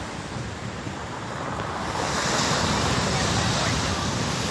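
Storm surf breaking and washing on a stony beach, with wind buffeting the microphone; the wash swells louder about two seconds in.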